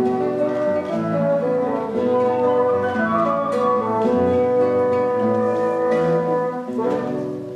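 Chamber string orchestra with classical guitars playing the closing bars of a piece: bowed violins, viola and cello over strummed and plucked guitars, ending on a long held final chord that fades away near the end.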